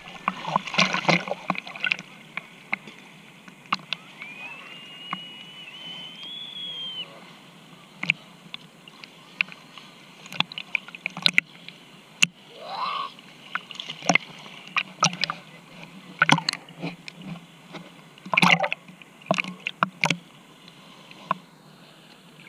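Sea water splashing and sloshing in short, irregular splashes.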